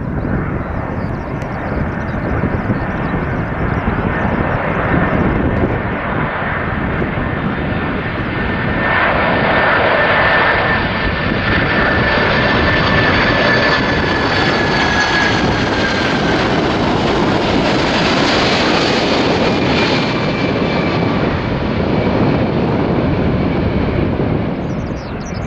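Boeing 747-400 jet airliner on landing approach passing close by, its four engines making a loud, steady jet rumble. A high engine whine slides slowly down in pitch through the middle of the pass as the aircraft goes by.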